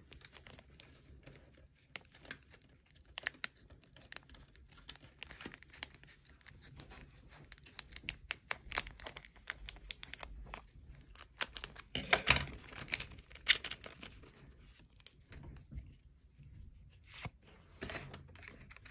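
Scissors snipping through a foil trading-card booster pack, with crackling and crinkling of the foil wrapper as it is cut and opened, in clusters of sharp rustles.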